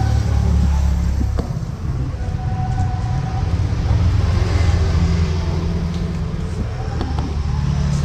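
A steady, low motor-vehicle rumble.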